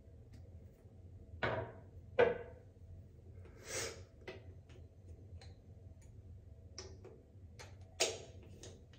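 Small handling sounds of a glass dropper bottle of face serum: a few light knocks and clicks as the dropper is taken out and handled, with a brief rustle midway, over a faint low room hum.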